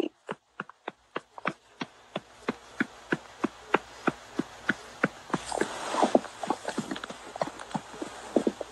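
A quick, irregular run of light clicks or taps, about three to four a second, with a few faint short squeaks around six seconds in.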